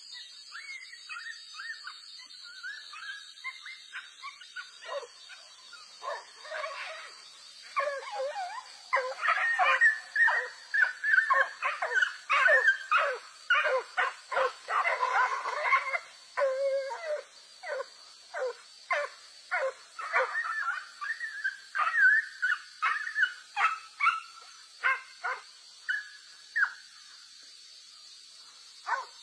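Dogs fighting, giving rapid, high-pitched yelps and squeals. The cries are scattered at first, come thick and fast from about eight to seventeen seconds in, then thin out and die away near the end.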